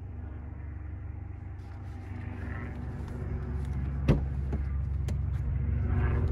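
Audi urS6's engine idling steadily, growing louder toward the end, with a sharp click about four seconds in.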